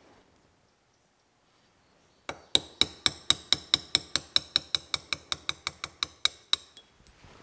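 A small hammer tapping a steel dowel pin into its hole in a part held in a bench vise: a fast, even run of light metallic taps, about five or six a second for some four seconds, each with a bright ring.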